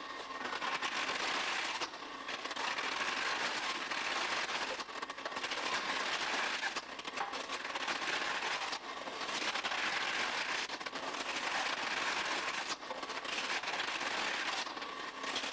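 Vegetable increment cutter running: a steady crackly clatter with a brief break about every two seconds.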